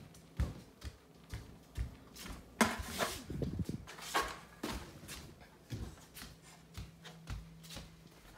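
Footsteps walking at about two steps a second, with a louder scuffing rustle a little under three seconds in.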